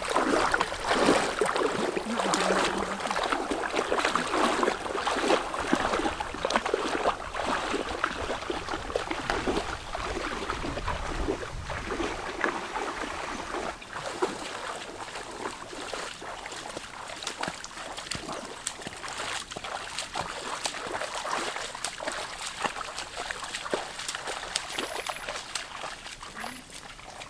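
People wading through knee-deep floodwater: irregular splashing and swishing of water around their legs, louder in the first half and slowly fading toward the end.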